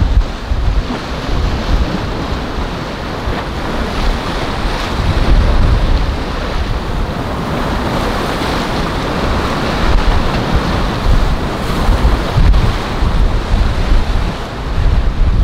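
Wind buffeting the microphone over the steady wash of rough surf breaking, in uneven gusts.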